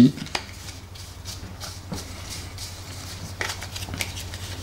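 Cards being handled by hand: a few faint soft taps and slides of a card deck, spread out over several seconds, above a low steady hum.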